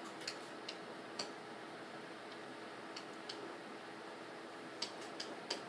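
Faint, scattered clicks and taps of a pen or stylus writing on the board, some in quick succession near the end, over quiet room tone.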